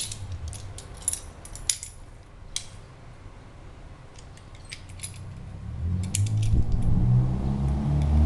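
Light metallic clicks and clinks of a wrench and small brass parts as a pressure lantern's air valve is worked loose, in scattered bursts. A low drone swells in over the last two seconds and becomes the loudest sound.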